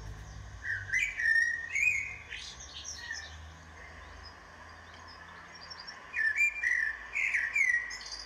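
A small songbird chirping in quick, high twittering phrases with short up-and-down glides, in two bouts: from about a second in for two seconds, and again from about six seconds in. A faint steady low hum runs underneath.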